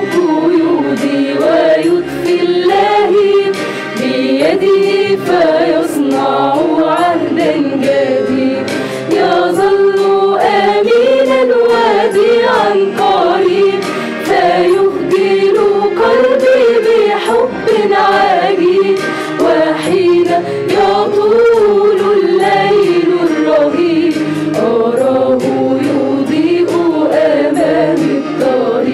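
Mixed choir of men's and women's voices singing an Arabic Christian hymn, with sustained phrases that rise and fall.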